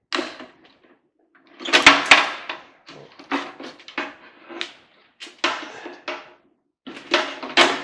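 Clicks and clatter from a microwave's sheet-steel housing and wiring being handled as wires are pulled out, in several short bursts with brief pauses between them.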